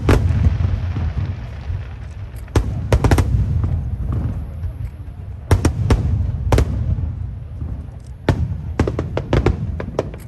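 Aerial fireworks bursting overhead: a run of sharp bangs in clusters over a steady low rumble, with a crackling hiss trailing the burst at the start. Further clusters of bangs come about a quarter of the way in, just past halfway, and again near the end.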